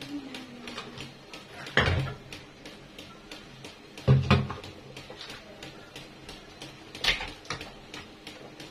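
Kitchen things being handled while a blender is set up: a clunk about two seconds in, a double knock about four seconds in and another clunk near seven seconds, with faint small ticks between.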